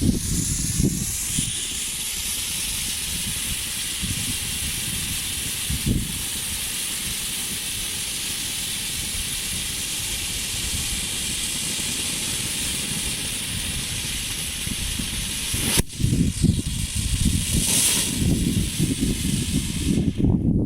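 Homemade firework fountains ('volcanoes') burning together, a steady loud hiss of spraying sparks that changes abruptly about 16 seconds in to a rougher, weaker hiss.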